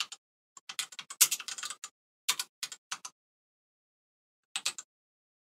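Typing on a computer keyboard: irregular runs of sharp key clicks, a dense flurry in the first two seconds and a few more around three seconds in. After a pause, a last couple of clicks come near the end.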